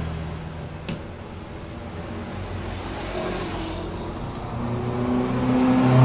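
A steady low engine hum from a running motor vehicle, growing louder near the end, with a single sharp click about a second in.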